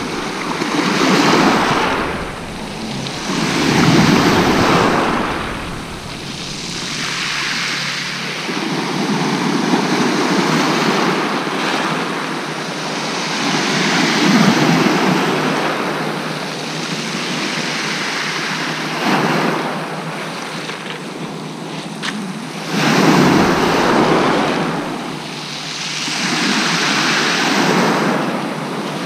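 Surf breaking and washing up a shingle beach, swelling and falling away every few seconds.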